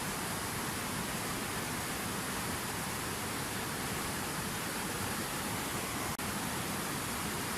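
Water from a fountain waterfall splashing and pouring in a steady, unbroken rush, with a momentary dip in level just after six seconds in.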